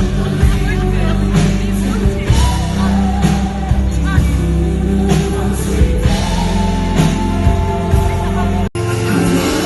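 Live pop concert music: a band with a heavy bass and steady drum beat, with singing over it. The sound cuts out for an instant near the end.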